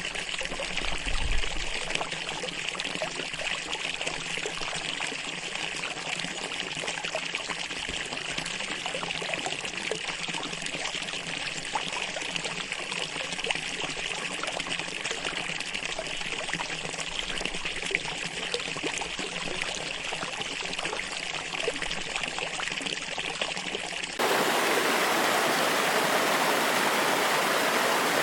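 Running water, a steady rushing flow. About 24 seconds in it switches abruptly to a louder, fuller rush of water.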